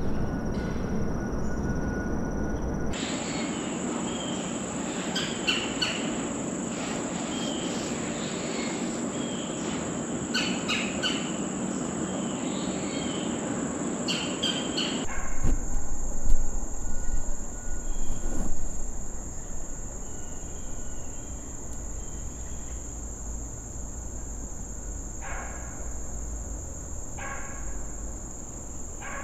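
Steady high-pitched drone of insects in late-summer woodland, with short bird chirps scattered through the first half. A brief burst of louder low rumbling comes about halfway through.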